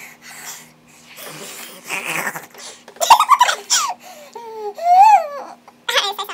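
A string of funny vocal noises: breathy huffs at first, then louder squealing, warbling calls that slide up and down in pitch.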